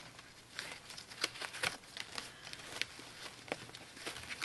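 Faint rustling and small scattered clicks from fingers picking at the card tag and band tied around a bundle of folded cotton fabric.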